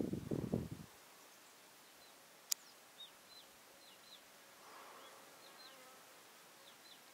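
Faint outdoor ambience with short, high, falling chirps, a few at a time, scattered through; low rustling or knocking in the first second and a single sharp click about two and a half seconds in.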